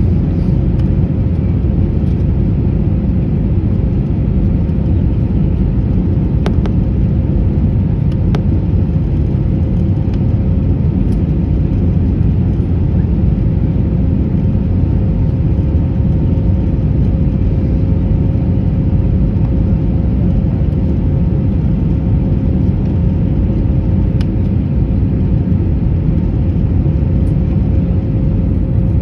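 Steady cabin noise inside an Airbus A321 taxiing after landing: a constant low rumble with a steady whine, and a couple of faint clicks about six and eight seconds in.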